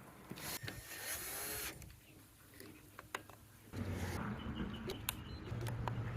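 Small electric motor of a smart deadbolt whirring in two short stretches as it drives the bolt, after a few clicks and some rustling handling noise.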